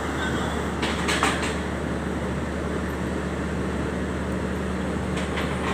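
Diesel engine of an XCMG drilling rig running steadily with a low drone. Short metallic knocks come about a second in and again near the end.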